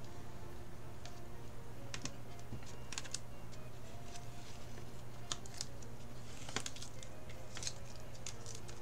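Masking tape being peeled off a watercolour paper swatch card: scattered soft crackles and ticks, a few louder ones past the middle, over a steady low hum.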